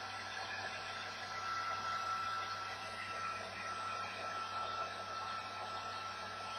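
Vidal Sassoon handheld hair dryer running steadily: a continuous rush of blown air with a thin, steady motor whine.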